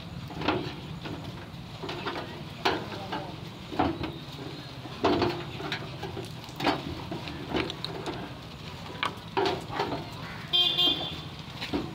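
Screwdriver clicking and scraping against a gas geyser's plastic control knob and panel as a tight knob is levered off, in irregular knocks about once a second. A brief high beeping tone sounds near the end, over a steady low background rumble.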